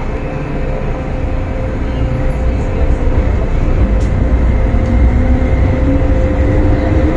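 MTR M-Train electric multiple unit accelerating out of a station, heard from inside the carriage: a steady rumble of wheels and running gear with a steady hum, and the traction motors' whine rising in pitch from about five seconds in as it picks up speed.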